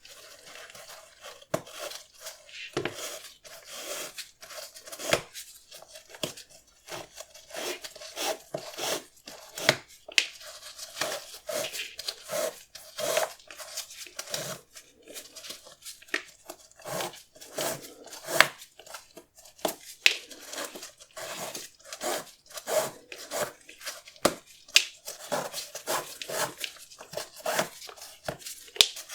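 Close-up handling noises of a sneaker unboxing: paper and packaging rustling and crinkling, with many sharp taps and clicks.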